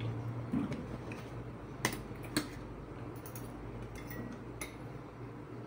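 Spoon and fork tapping and scraping on plates while eating, with a few sharp clinks, two of them about two seconds in and another near the end, over a low steady hum.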